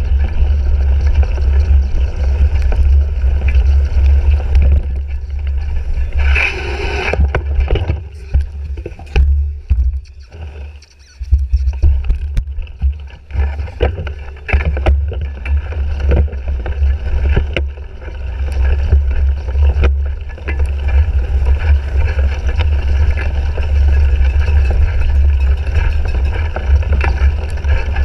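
Wind buffeting the microphone of a handlebar-mounted action camera on a cyclocross bike moving over rough ground, a heavy steady rumble with frequent small rattles and knocks from the bike. It eases off briefly about ten seconds in, then picks up again.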